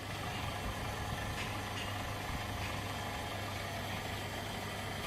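Steady low mechanical hum of a running motor or engine, even throughout, with a few faint light ticks.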